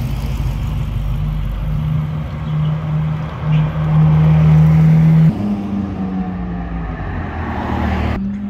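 McLaren Senna's twin-turbo V8 running at steady revs as the car drives past at low speed, loudest as it goes by close about four to five seconds in. The engine note steps abruptly to a higher pitch a little after five seconds.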